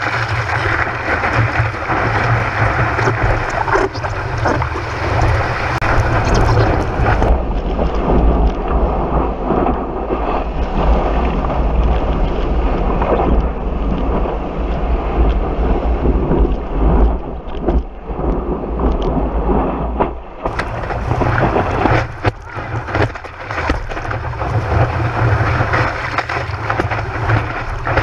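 Wind buffeting the microphone of a board-mounted GoPro, with the rush and splash of whitewater as a surfboard rides a wave. The rushing turns duller from about 7 to 20 seconds in.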